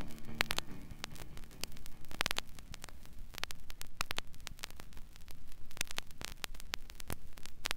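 Vinyl LP playing the blank groove between two tracks: surface noise of scattered clicks and pops over a faint low hum.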